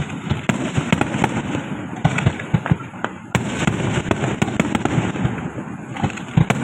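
Many fireworks and firecrackers going off at once: a dense, continuous crackle with frequent sharp bangs overlapping, no pause between them.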